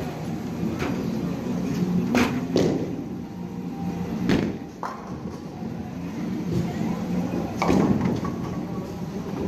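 Bowling alley din: a steady rumble of balls rolling on the lanes, broken by several sharp knocks and clatters of balls and pins, the loudest crash near the end with a short ringing tail.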